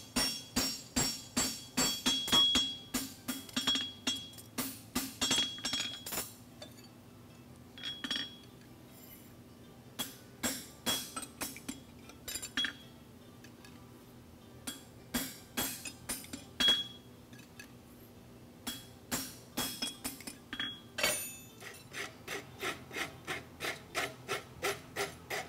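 Hand hammer striking a hot steel horseshoe on an anvil in runs of two to three blows a second, each blow ringing off the anvil, with short pauses between runs. The shoe is being hammered flat to iron out puckering. Near the end comes a run of quicker strokes of a file across the hot shoe.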